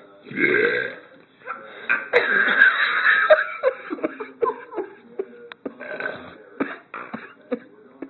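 Loud burping: a deep burp about half a second in, then a longer, louder stretch of excited vocal sounds about two seconds in, followed by many short vocal bursts as a man and a baby trade burps.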